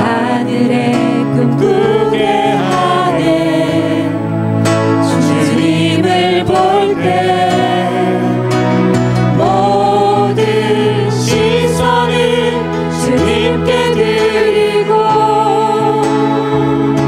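A small worship team singing a praise song together into microphones, accompanied by acoustic guitar, with sustained low notes beneath.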